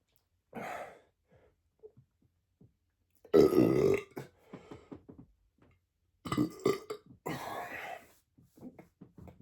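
A man belching from a full, gassy stomach: a short belch about half a second in, a long loud belch at about three and a half seconds, then two more close together near the end.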